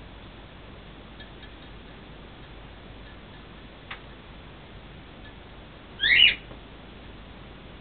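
African grey parrot giving one short, loud squawk with quick rising sweeps in pitch, about six seconds in. Before it there are a few faint chirps and a single light click.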